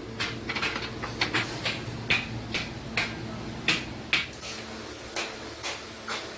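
Light hammer taps and knocks on iron sheet, about two a second and unevenly spaced, some harder than others, over a steady low hum.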